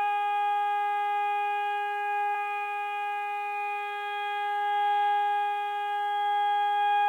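Hörmann ECN electronic warning siren sounding one steady, unwavering tone with no rise and fall, the form of the all-clear signal. Its loudness swells and dips gently.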